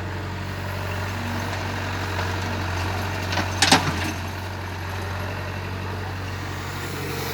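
Excavator's diesel engine running with a steady low drone, with a brief sharp clank about three and a half seconds in.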